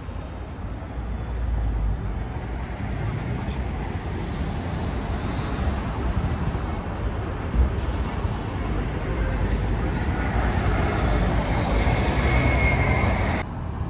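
City street traffic on a cobbled avenue: a steady rumble of car engines and tyres, with a single brief thump about halfway through.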